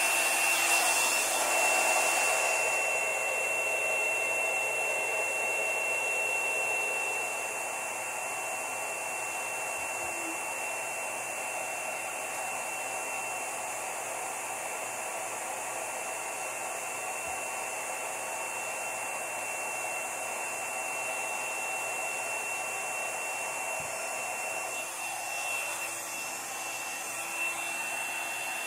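Handheld hair dryer running steadily, blowing air across wet acrylic paint: an even rush of air with a constant high whine, a little louder for the first several seconds.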